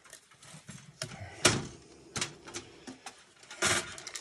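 Scattered clicks, knocks and rattles of a motherboard being worked free and lifted out of a steel computer case, the sharpest knock about one and a half seconds in and a brief louder rustle near the end.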